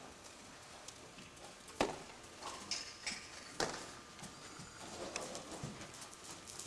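Hoofbeats of a horse moving loose at trot and canter on arena sand footing: irregular dull strikes, two louder ones about two seconds and three and a half seconds in.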